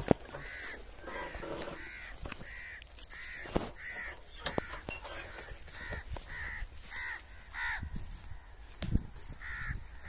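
Crows cawing over and over, about two harsh calls a second, with a few sharp knocks in between.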